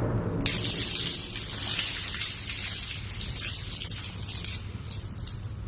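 Pickle juice pouring out and splattering in a steady gush, starting about half a second in and tapering off near the end.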